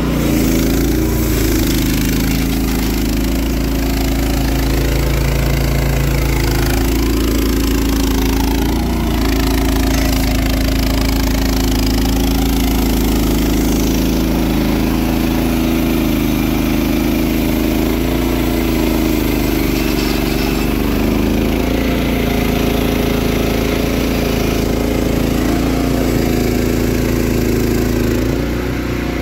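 Frontier OS31 portable bandsaw mill running: its small engine holds a steady speed while the band blade saws through a large log.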